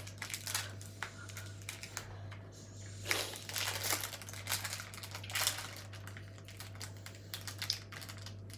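Plastic packaging crinkling and rustling as it is handled, in irregular bursts of short crackles and clicks, busiest through the middle.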